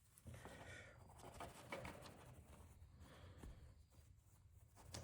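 Faint, irregular rubbing and scratching as Flitz metal polish is worked by hand onto a pocketknife.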